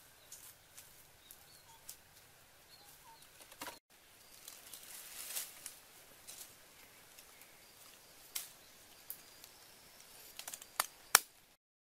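Light rustles and scattered clicks as a woven bamboo fish trap is handled on dry leaves, with a few faint bird chirps. A sharp click near the end is the loudest sound.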